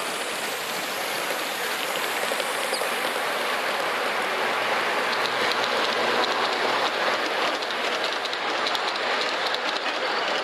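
G-scale model train running on its track: a steady hiss with fast wheel clicking over the rail joints, swelling a little toward the middle.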